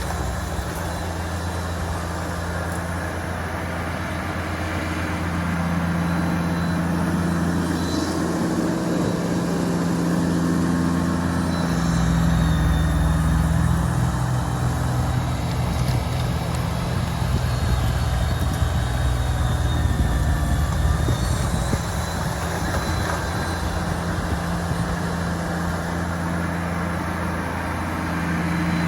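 Kubota BX2380 compact tractor's three-cylinder diesel engine running steadily under load while it drives its front-mounted BX2822 snowblower, with a rushing noise over the engine. The engine note shifts about 8 seconds in and again about 12 seconds in.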